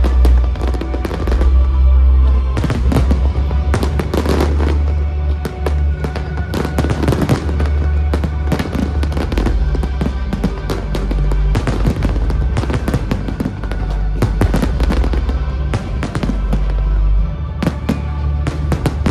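Fireworks bursting and crackling in quick succession, many sharp bangs one after another, over loud music with a heavy bass line.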